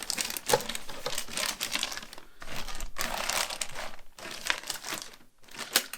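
Thin plastic waste bag crinkling and rustling in irregular bursts as it is folded and pushed into a wet-and-dry vacuum tub.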